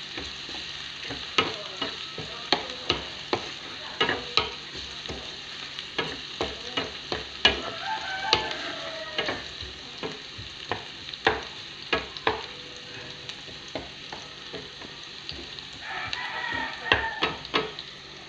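Sliced onions and garlic sautéing in hot oil in a frying pan, sizzling steadily, with irregular sharp clacks of a wooden spatula stirring against the pan.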